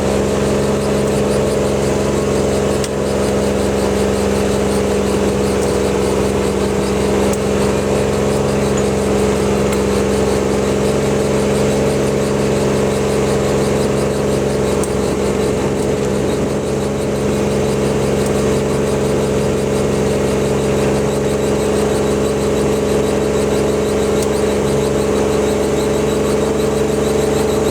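RTV utility vehicle's engine running steadily while driving, its drone holding an even pitch.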